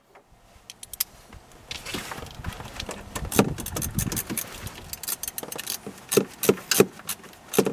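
Ratchet on a long socket extension clicking in irregular bursts while loosening the air-intake hose clamp, with clinks and rubbing of metal tools against plastic ducting; the clicks come quicker and sharper in the second half.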